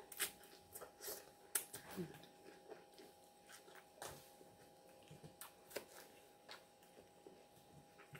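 Close-up eating sounds from a person chewing a mouthful of pasta salad with chicken: soft, scattered mouth clicks and smacks, several a second at first, then sparser.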